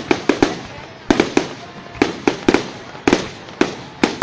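Aerial fireworks display: a rapid, irregular barrage of sharp bangs, several a second in clusters, each echoing briefly.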